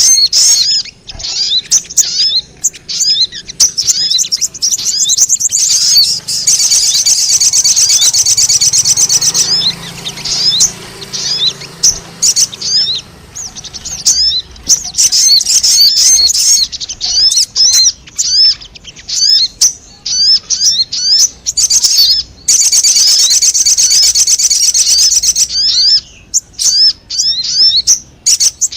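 Sogon (little spiderhunter) lure calls: a continuous stream of sharp, high chipping notes, broken by several runs of very fast rattling trills, each lasting a few seconds.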